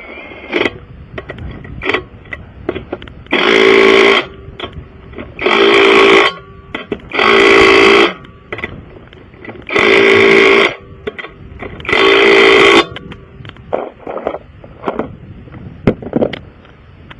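Impact wrench run in five separate bursts of about a second each, each a loud steady whirring hammer, tightening a wheel's lug nuts one by one. Small clicks and knocks come between the bursts.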